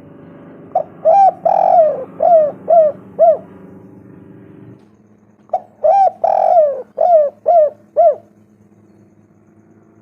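Spotted dove cooing: two phrases of about six short coos each, every phrase with one longer, drawn-out coo near its start.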